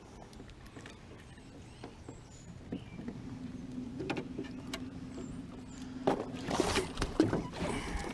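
A small motor hums steadily for about three and a half seconds in the middle, among scattered knocks and louder rustling and handling noise near the end.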